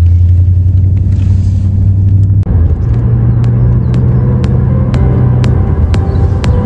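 Steady low road and engine rumble inside a moving car's cabin. About two and a half seconds in, a cut brings in music with sustained notes and a steady ticking beat, about two ticks a second, over the low rumble.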